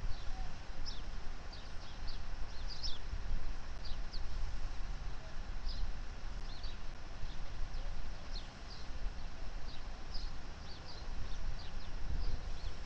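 Small birds chirping over and over above a low rumble from slowly approaching diesel locomotives, the rumble growing louder near the end.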